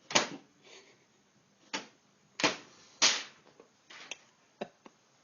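A series of sharp knocks or slaps: four loud ones in the first three seconds, each with a short tail, then a few fainter taps near the end.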